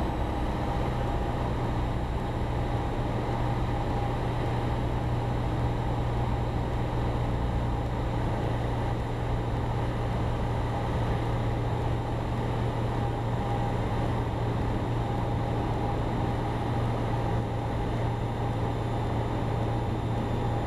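Cessna 172 Skyhawk's piston engine and propeller droning steadily in cruise-descent, heard from inside the cabin.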